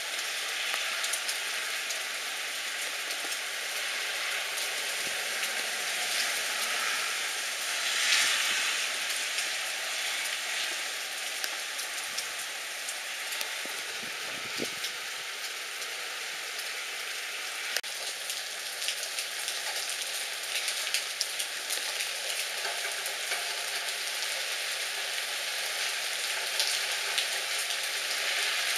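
Heavy downpour: a steady hiss of rain with many close drops ticking. It grows briefly louder about eight seconds in.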